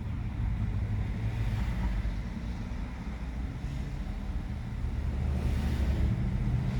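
Steady low rumble like a vehicle's, with a light hiss and no distinct events.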